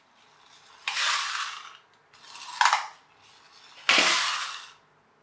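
Small plastic pullback toy boat's wind-up spring motor whirring as it runs across a table, in three rattly spurts of about a second each, each starting sharply and fading out.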